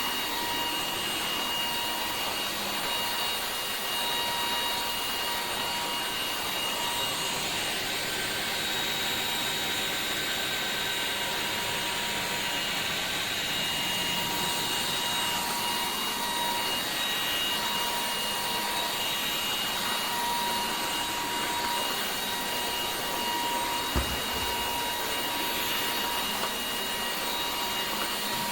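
Dreame H12S cordless wet-and-dry floor vacuum running steadily: an even rushing hiss with a high motor whine over it. There is a single small click late on.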